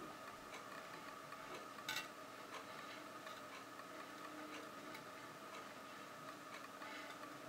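Faint regular ticking, about two ticks a second, over a low steady hum, with one sharper click about two seconds in.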